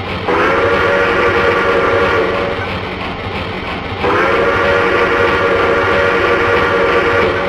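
Train whistle sounding two long chord blasts, each about three and a half seconds, back to back, each sliding up slightly as it starts, over a steady low rumble.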